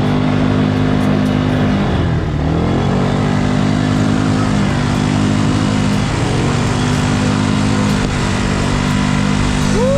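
Quad bike (ATV) engine running under way, its pitch dipping and climbing back about two seconds in and again briefly around six seconds, as the throttle is eased and reopened.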